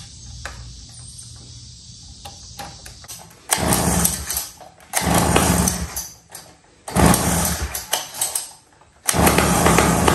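1980s Sears Gamefisher 3 hp two-stroke outboard being pull-started on a small prime squirted into its freshly cleaned carburettor. On three pulls it fires and runs for about a second before dying. About nine seconds in it catches and keeps running, a sign that the long-idle motor wants to run.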